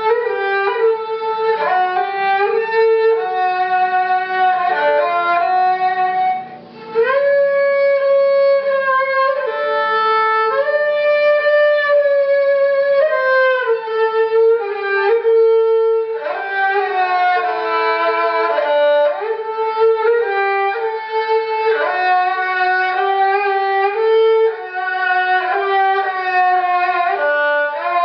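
A klasik kemençe (Politiki lyra) with a maple body and cedar soundboard, bowed, playing a melody that slides between notes. There is a brief break about six and a half seconds in.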